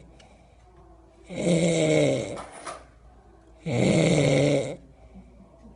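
Loud snoring: two long snores about two and a half seconds apart, each lasting about a second, with quiet breathing between them.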